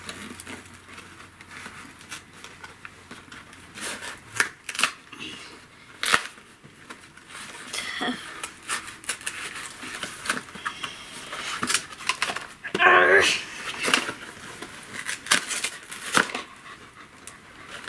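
Paper rustling and crinkling as an instruction booklet is handled and its pages turned, in irregular short rustles with a few sharp clicks.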